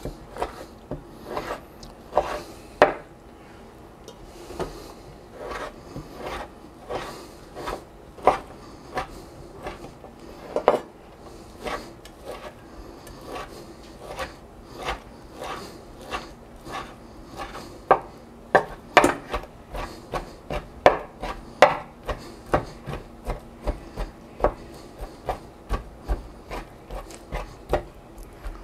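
Kitchen knife slicing and dicing salami on a wooden cutting board: a long run of sharp knife strokes on the board, coming closer together in the second half.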